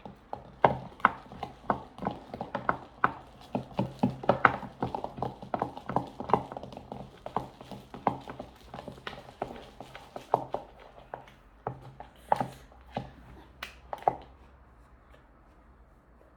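Sticky homemade slime being kneaded and pulled by hand, making irregular wet clicks and smacks a few times a second; the slime is still sticky and has not set. The clicking stops about 14 seconds in.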